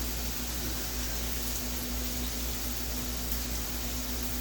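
Steady hiss with a low, constant hum: unchanging background noise with no distinct event.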